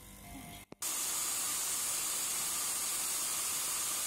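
Electric mixer-grinder grinding whole black peppercorns: a steady, loud, hiss-like whir that starts abruptly about a second in.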